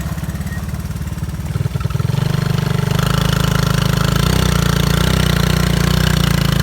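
Honda ATC three-wheeler's small single-cylinder engine running with a rapid, even firing beat, getting louder and steadier about two seconds in.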